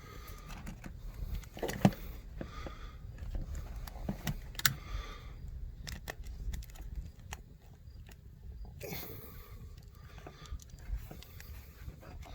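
Small scattered clicks and taps, one sharper knock about two seconds in, as existing doorbell wires are fastened to the terminal screws on the back of a video doorbell. A low rumble runs underneath.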